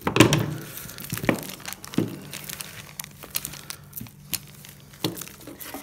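Clear plastic coin bags crinkling and rustling as hands sort and lay out bagged silver and copper coins, with scattered sharper crackles and clicks. The loudest comes right at the start.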